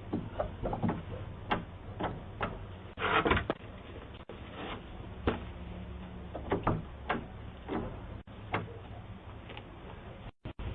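Irregular knocks and clicks, about fifteen, over a steady low hum, with a louder half-second noise about three seconds in.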